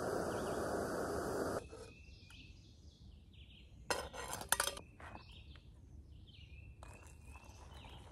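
Small backpacking stove burning with a steady hiss that cuts off suddenly about one and a half seconds in as it is shut off. Birds then chirp, and a metal pot lid clinks a few times about four seconds in as it is lifted. Near the end there is a faint sound of hot water being poured from the pot.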